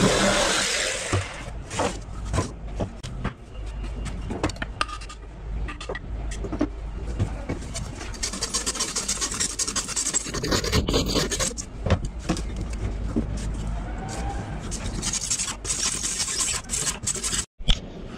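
Electric jigsaw cutting a plywood sheet, stopping about a second in. Then knocks and clatter as the sawn board is handled, with stretches of fine scraping and rubbing along its edge.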